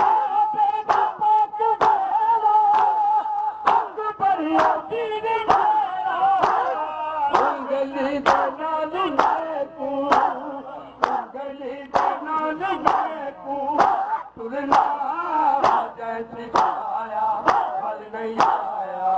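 A man sings a lament in a chanting style, with the crowd joining in, over matam: open hands striking bare chests in unison, a sharp slap about once a second.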